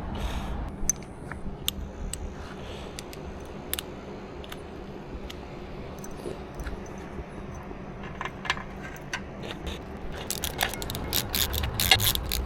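Scattered metallic clinks of hand tools and bolts being handled, then from about ten seconds in a rapid run of ratchet-wrench clicks as bolts are driven, over a faint steady hum.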